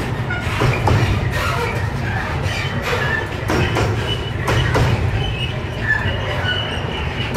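Container flat wagons of a slow freight train rolling past: a steady low rumble with knocks from the wheels and short high squeaks.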